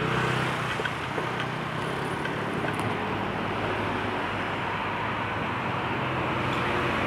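Steady street traffic noise: a continuous wash of cars and engines running on the road.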